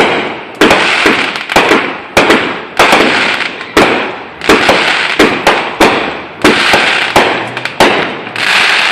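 Fireworks going off in a rapid volley: a dozen or so loud bangs, roughly one every half to three-quarters of a second, each trailing off in a noisy tail over about half a second.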